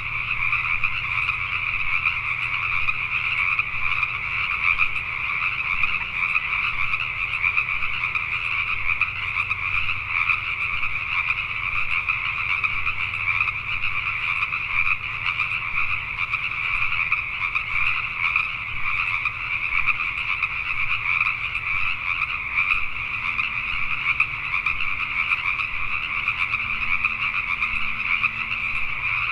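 A dense breeding chorus of male Pacific tree frogs (Pacific chorus frogs), many calls overlapping into a steady, unbroken din.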